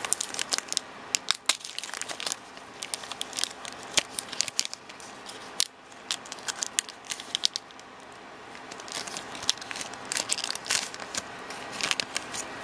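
Foil booster-pack wrapper crinkling and crackling in quick, irregular snaps as it is worked open by hand, carefully, so as to keep the pack intact.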